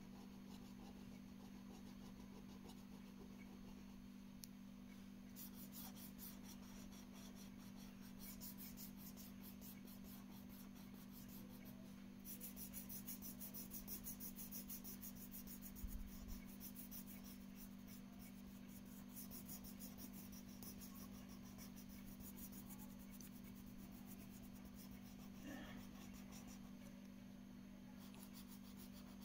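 Colouring pen scratching rapidly back and forth on paper as an area is shaded in with quick repeated strokes, starting a few seconds in. The scratching is faint, with a steady low hum underneath.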